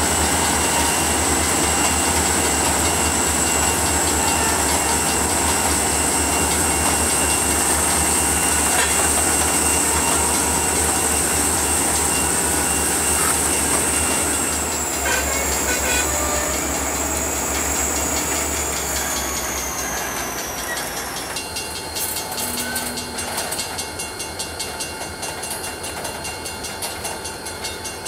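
Freight train's covered hopper cars rolling past on steel wheels: a steady rumble and clatter over the rail with a thin, high wheel squeal that drops in pitch about halfway and slides away about three-quarters through. After that, an uneven clickety-clack that gradually gets quieter.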